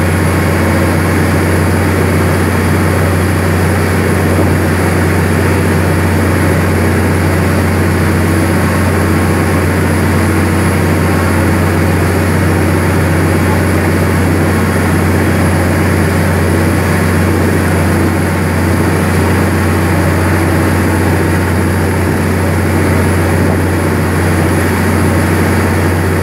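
A riverboat's diesel engine running steadily under way, a constant low drone, mixed with the rush of the wake along the hull.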